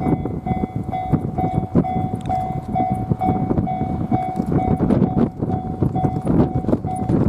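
Japanese railway level-crossing alarm ringing about twice a second over the rumble of a passing train, the KuMoYa 443 inspection car slowed for strong wind, with wind buffeting the microphone.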